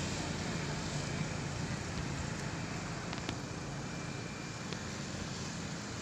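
Light road traffic: a motorcycle engine running steadily as it rides along the road, over a steady hum of traffic noise.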